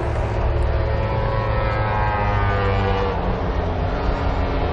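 MotoGP racing motorcycle engine running on the track, its pitch falling about halfway through.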